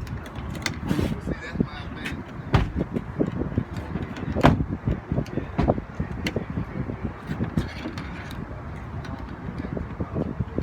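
Irregular clicks, knocks and scrapes of hand tools working at a car's outside door handle and its linkage rod, with a few sharper knocks about two and a half and four and a half seconds in.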